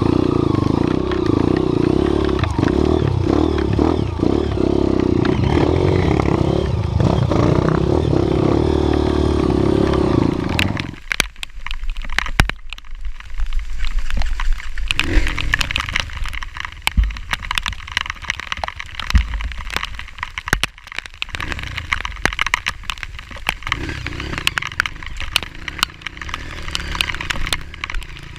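Motorcycle engine running steadily and loudly, then cutting off abruptly about eleven seconds in. After that, scattered clicks, cracks and scraping sounds follow.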